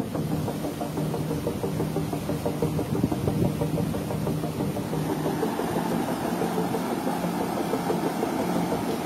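Background music with steady low held notes and a plucked, strummed rhythm; a denser, rougher layer comes in about halfway through.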